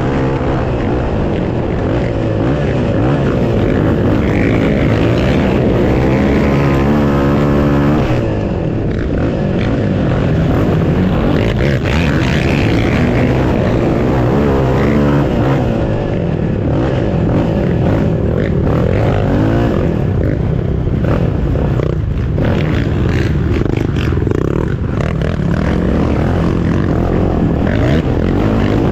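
Yamaha racing quad's single-cylinder four-stroke engine run hard at high revs, heard from on board, its pitch climbing and dropping as the rider accelerates and shifts.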